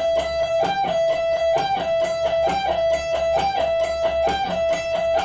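Electric guitar playing a repeating E-minor lick on the high E string: one picked note at the 15th fret, then three alternate-picked notes at the 12th. The figure repeats about once a second, a short higher note dropping to a lower one.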